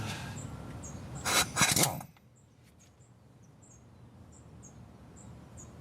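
Two short bursts of impact wrench hammering on a seized crank pulley bolt, about a second and a half in, that fail to free it. Then quiet, with faint bird chirps.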